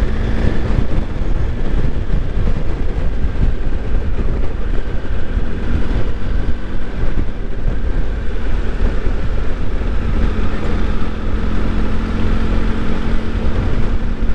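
Motorcycle being ridden along a road: a steady rush of wind buffeting the microphone, with engine and road noise underneath and a faint steady engine hum that grows plainer in the second half.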